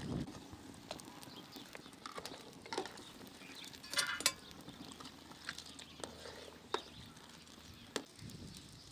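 Sparse sharp clicks and crackles from a twig fire burning under a large aluminium cooking pot, with a ladle stirring in the pot. A short high-pitched call sounds once, about four seconds in.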